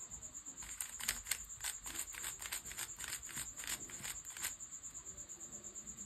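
An RS3M magnetic 3x3 speed cube being turned quickly by hand: a rapid run of about a dozen and a half sharp plastic clicks from its layers over some four seconds, over a steady high chirping of crickets.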